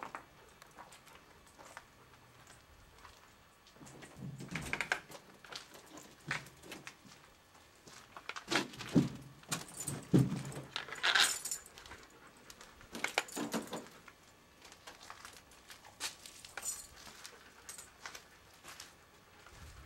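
Footsteps scuffing and crunching over debris on a littered floor, with scattered small clinks and rattles, busiest and loudest in the middle of the stretch.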